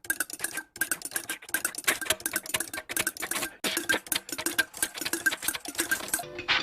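A cartoon sound effect: a fast, uneven rattle of sharp mechanical clicks with a faint steady tone beneath. It starts suddenly and cuts off shortly before the end.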